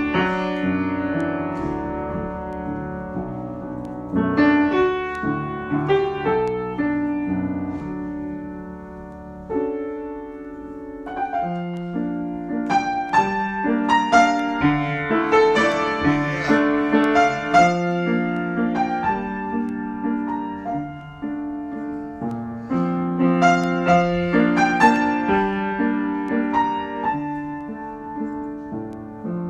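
Solo piano improvisation: chords with a melody line above. The playing thins out about a third of the way through, then builds back to fuller, louder passages.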